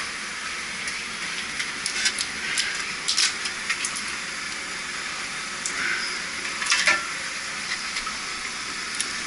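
A steady hiss with a few sharp knocks and scrapes of a heavy metal compressor being handled on a wet concrete floor, the loudest about seven seconds in.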